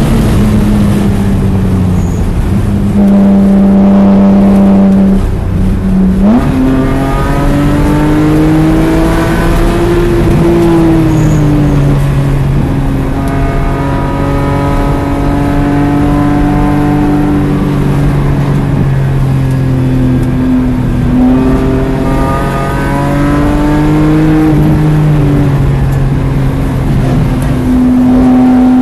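BMW E46 M3's S54 inline-six running hard on a race track, heard from inside the cabin. The engine note holds steady at speed, jumps up sharply about six seconds in as the car brakes and downshifts from about 100 mph, then rises and falls with the throttle through the following corners.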